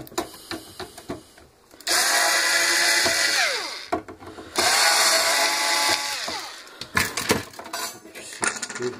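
Cordless electric screwdriver backing out two screws in two runs of about a second and a half each, its motor winding down with a falling whine at the end of each run. A few sharp clicks follow near the end.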